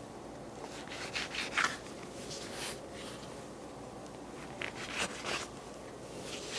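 Bench scraper cutting down through sticky pizza dough and scraping across a countertop, with soft rubbing as the dough pieces are pulled apart: a few short scrapes in two clusters.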